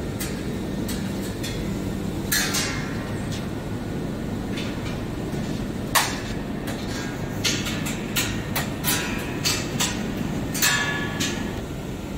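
Steady low hum of running workshop machinery, with scattered metallic clanks and knocks that ring briefly. The sharpest comes about six seconds in, and more are bunched in the second half.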